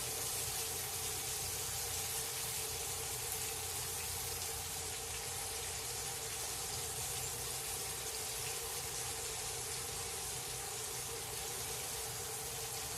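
Breaded fish fillets frying in peanut oil in a cast-iron pan: a steady, even sizzle, with a faint steady hum underneath.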